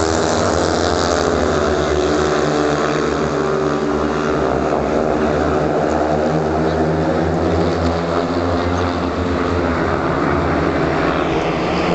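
Speedway bikes' 500cc single-cylinder methanol engines running flat out around the track: a loud, steady drone of several overlapping engine pitches.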